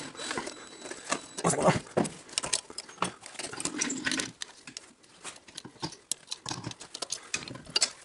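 Irregular metallic clicks, taps and scrapes of hand tools working at a minibike's roller drive chain to remove its master link, with a few louder knocks about a second and a half in.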